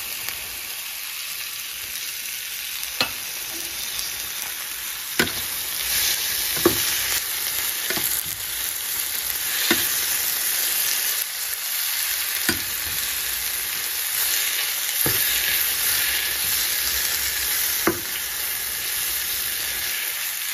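Raw prawns frying in onion-tomato masala in a metal pan, sizzling steadily. A metal slotted spatula knocks and scrapes against the pan every couple of seconds as they are stirred.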